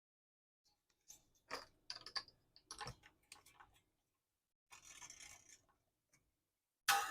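Faint clicks and scrapes of hands working with guitar strings and tools during a restring, with a short rustle about five seconds in and a sharper click near the end.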